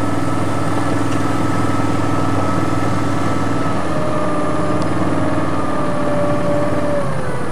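Steady drone of an engine running at idle: a low hum with a few held tones, one of which sags slightly in pitch near the end.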